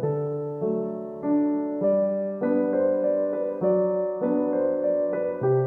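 Background piano music: calm keyboard chords, a new one struck about every half second.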